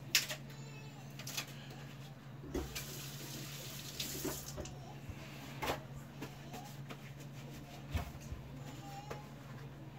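Kitchen tap running briefly, a faint hiss from about three to four and a half seconds in, over a steady low hum, with a few scattered clicks and knocks.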